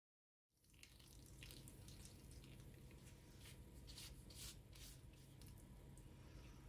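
Near silence: faint room tone with a low hum and a few soft, brief rustles or splashes of household handling.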